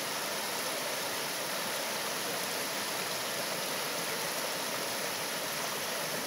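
Shallow mountain stream rushing over rocks in a steady, even rush of water.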